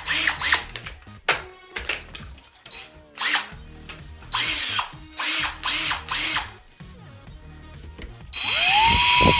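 Electric drill run in several short trigger bursts, its motor whining up and dropping back each time, then a longer, louder run near the end that spins up to full speed. It is drilling into a rusted metal toilet-seat bolt.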